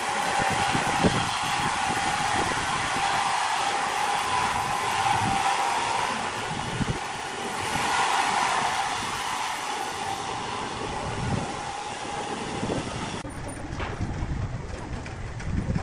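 Large band sawmill running, a steady high whine over a rushing noise that swells about eight seconds in. About thirteen seconds in it cuts off abruptly to a quieter background with a few low knocks.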